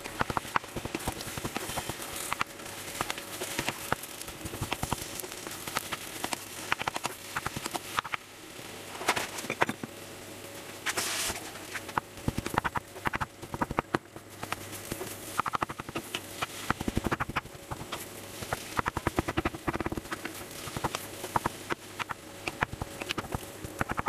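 Wooden spatula knocking and scraping against a frying pan in many quick, irregular strokes as it chops a thick mass of boiled semolina into crumbs for semolina migas.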